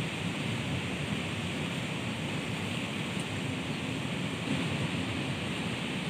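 Strong wind blowing steadily through leafy trees and shrubs.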